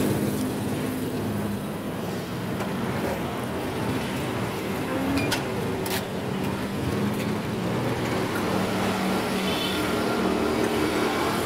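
Road traffic with a vehicle engine running steadily, a low hum under a wash of street noise. Two sharp clicks come about five and six seconds in.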